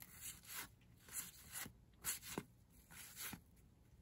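Cardboard baseball cards sliding against one another as they are flipped through in the hand: a series of faint, short swishes, about two a second.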